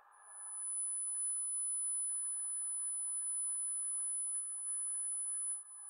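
Steady sine-wave test tone played through speakers by a Lepai LP-2020A+ mini amplifier running on 12 volts. It fades in over the first half second, holds steady, and dips briefly near the end.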